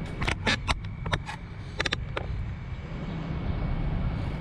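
Steady low rumble of street traffic, with a quick run of sharp clicks and taps over the first two seconds or so.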